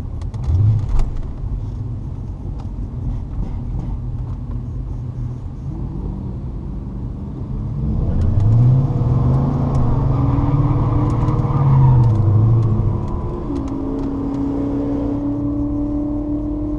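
V8 car engines idling with a low rumble, heard from inside an SS Impala's cabin. About halfway through, an engine revs up, holds there for a few seconds and drops back. Near the end a steady engine note rises slowly as the car creeps forward.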